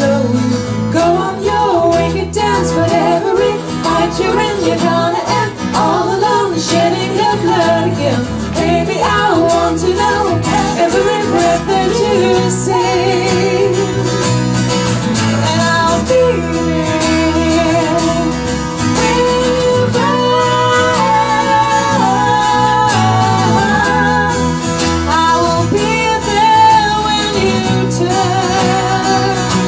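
Live band: women singing a melody with vibrato, accompanied by strummed acoustic guitar and electric bass guitar.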